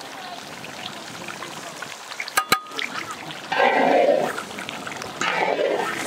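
Thick, watery beef curry stirred in a large iron wok with a long wooden stick: sloshing and scraping, with two sharp knocks of the stick on the pan about two and a half seconds in and louder sloshing from about halfway.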